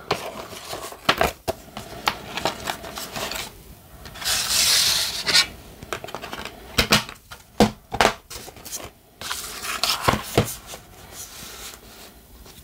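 Unboxing handling: a paper poster rustles as it is folded and slid away, then a run of sharp clicks and taps as the metal steelbook case and its disc are handled and the case is closed.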